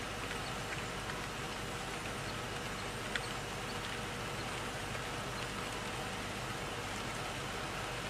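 Steady hiss of outdoor background noise, with a faint steady hum and a single small click about three seconds in.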